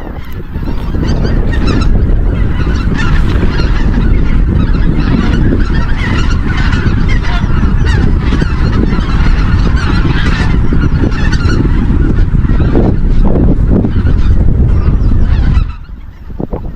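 A flock of geese calling, many honks overlapping, over a heavy rumble of wind on the microphone. The calls fall away near the end.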